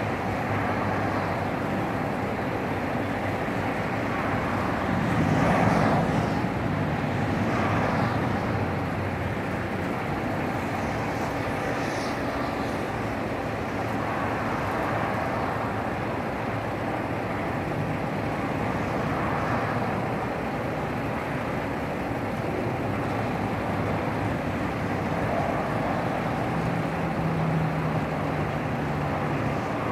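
SEG 2.0 industrial sliding-gate motor running and the steel gate rolling along its track as it slides open. A steady outdoor noise like traffic runs under it, with a low hum that grows stronger near the end.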